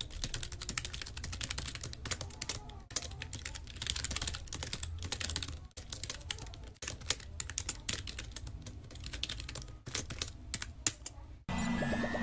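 Computer keyboard typing: quick, irregular runs of keystrokes with brief pauses. It stops abruptly about eleven seconds in, where a rising electronic tone begins.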